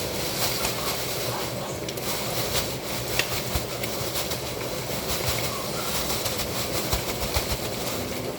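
Fish frying in hot oil: a steady sizzling hiss with frequent small pops and crackles.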